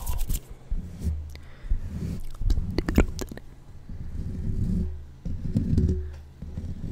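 Hands rubbing and cupping close around a microphone: a string of low, muffled rubbing swells, about one a second, with a few sharp clicks about three seconds in.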